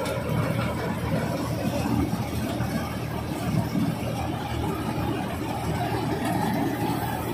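A John Deere combine harvester running steadily, its engine and machinery working under load as it struggles through deep mud.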